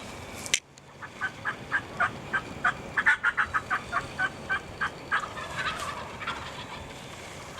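Wild turkeys calling: a run of short, sharp notes that speed up over a few seconds, then a longer, ragged rattling call that trails off.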